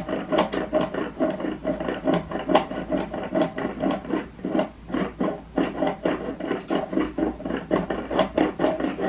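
Baby Alive Magic Mixer toy blender worked by hand, its top pressed down again and again: a steady, rhythmic plastic rubbing and clattering, several strokes a second, as the doll's smoothie is mixed.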